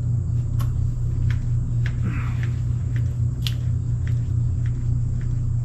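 A hand grease gun being pumped on a tractor's front-end grease fitting, its lever clicking about every half second. A steady low hum runs underneath.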